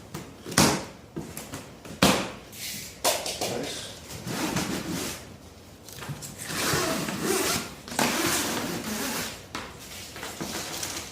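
Heavy cardboard shipping boxes being handled: scraping and sliding of cardboard against cardboard, with several sharp knocks, the loudest about half a second and two seconds in.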